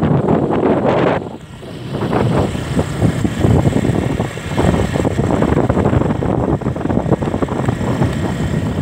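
Small motorcycle engine running while riding, mixed with wind buffeting the microphone; the sound drops off briefly about a second in, then picks up again.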